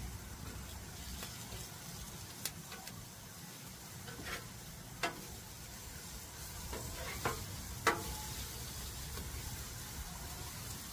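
Crab cakes frying in oil on a flat-top griddle with a steady sizzle, and a metal spatula clicking and scraping against the griddle several times.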